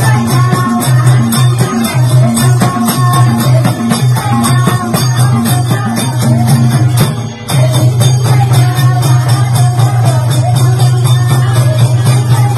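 Nepali bhajan devotional music with a steady beat, regular jingling percussion strokes and a melody. It drops out briefly about seven seconds in, then resumes.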